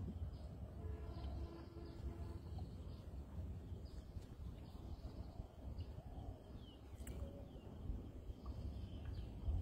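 Faint birds chirping, short high downward notes scattered throughout, over a steady low rumble of outdoor background noise.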